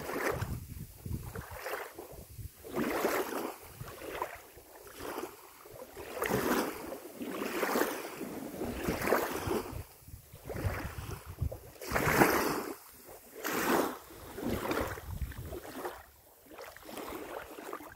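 Small waves washing against the river shore in a series of hissing swells, roughly one a second, over a low rumble of wind on the microphone.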